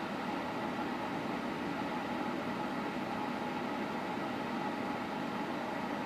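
A 110-volt electric space heater running, giving a steady hum and whir with a few faint held tones in it.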